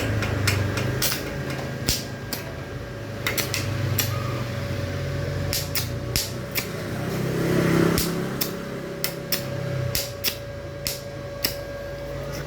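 Mini stick welder's arc crackling and popping irregularly as the electrode is struck and run, over a steady hum from the welding machine.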